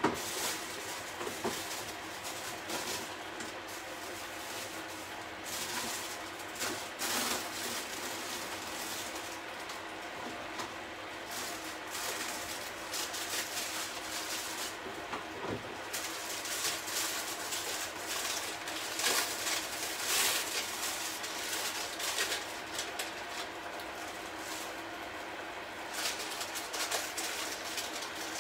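Pan of tomato sauce with crabs and prawns simmering on the hob: steady bubbling with irregular spatters and crackles, over a low steady hum.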